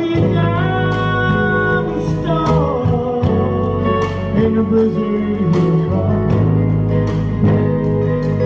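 A live country band playing with a steady drum beat, electric bass, acoustic and electric guitars and keyboard.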